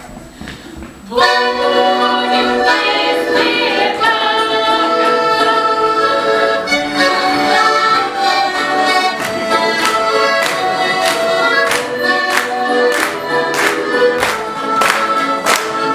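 Folk music: an accordion starts playing about a second in, under singing voices, for a Voronezh stradaniya song. From about nine seconds a sharp beat joins in, about two a second.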